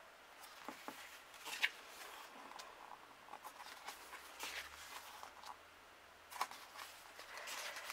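Semi-gloss photobook pages being turned by hand: faint paper rustling and light flicks, with a couple of sharper page snaps.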